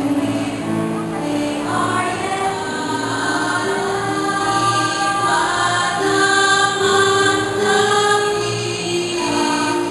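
A choir singing a song in long held notes, several voice parts at once.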